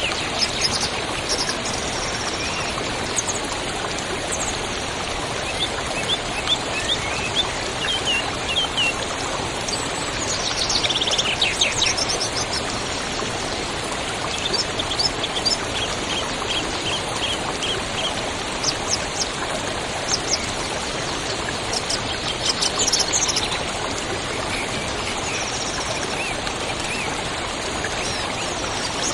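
Waterfall water falling and rushing in a steady hiss, with songbirds calling over it in series of quick high chirps and a couple of louder fast trills.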